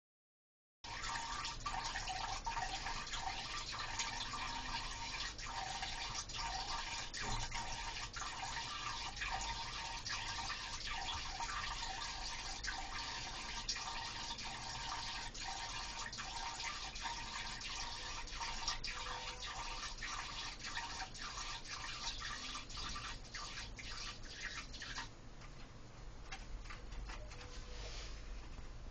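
A Sphynx cat urinating into a toilet bowl: a steady trickle into the water that goes on for over twenty seconds and stops abruptly near the end, followed by a few faint drips.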